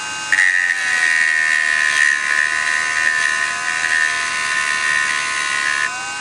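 Dremel Stylus cordless rotary tool running steadily with a small grinding stone, its motor whine wavering a little in pitch under load. The clear plastic stem of a 2 mm LED is ground against the stone: a gritty grinding hiss starts about half a second in and stops shortly before the end.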